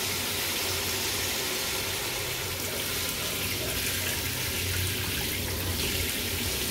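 Kitchen tap running steadily into a stainless steel sink, the stream splashing over raw chicken pieces in a plastic bag as they are rinsed.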